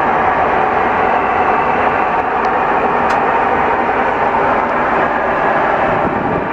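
Airbus A330-300 jet engines and airflow heard from inside the cabin: a loud, steady roar with faint even tones running through it, unchanging throughout.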